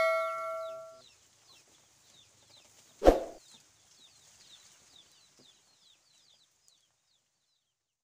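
A bell-like chime, the sound effect of an animated subscribe-and-bell button, rings out and fades over the first second. Faint, high, quickly repeated chirps of small birds run through the background, and one short, sharp noise comes about three seconds in.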